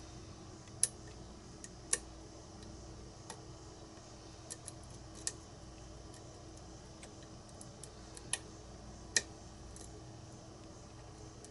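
Lock pick working the pins of a pin-tumbler challenge lock: faint, irregular small metallic clicks and ticks, with a handful of sharper clicks spread through.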